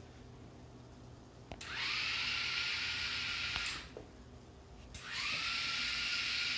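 The four small DC drive motors of a Raspberry Pi robot car, switched by a relay board, whir in two runs. Each run starts with a relay click and the whine rises in pitch as the motors spin up, then holds steady. The first run lasts about two seconds and stops with a click; the second starts about five seconds in.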